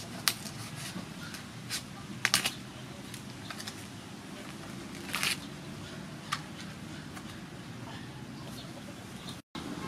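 Knife cutting and scraping into the tough husk of a large fresh bamboo shoot: a few sharp cracks and short scrapes, scattered and irregular, over a steady low hiss.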